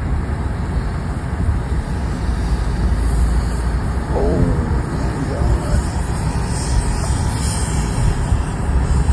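Steady road and wind noise inside a moving car, with a heavy low rumble throughout. A brief voice sounds about four seconds in.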